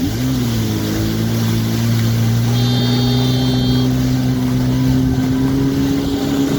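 Jet ski engine running under way, its pitch climbing briefly at the start and then holding steady.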